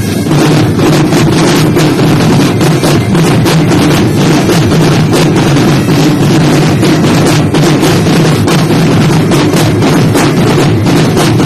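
A drum corps drumline of snare drums and bass drums playing a loud, fast, unbroken cadence.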